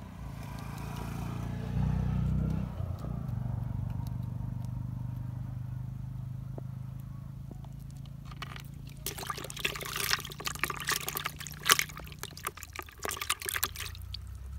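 Small fish splashing in a plastic bucket of water, a dense run of quick splashes over the last several seconds, over a low steady hum.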